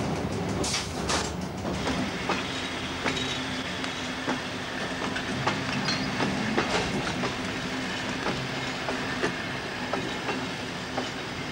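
Train rolling through a station yard, heard from on board: its wheels click sharply and irregularly over rail joints and points, over a steady hum.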